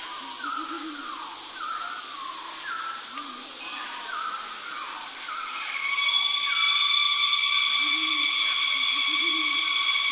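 New Guinea rainforest animal chorus. Short falling bird calls repeat about once a second, with low hooting calls and a thin steady whine under them. About six seconds in, a louder steady buzzing insect drone starts.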